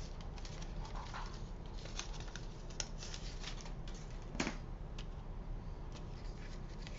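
Cardstock being handled on a desk: faint rustles and small taps as a die-cut paper panel is positioned and pressed onto a card base with glue dots, with one sharper tap about four and a half seconds in.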